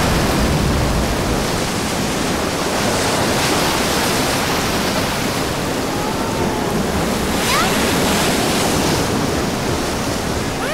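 Cartoon sound effect of floodwater rushing through a house: a loud, steady watery rush, with a couple of faint short gliding blips in the middle.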